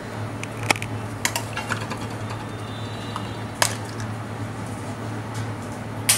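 Kitchen utensils clinking: a handful of sharp, separate clicks and clinks over a steady low hum.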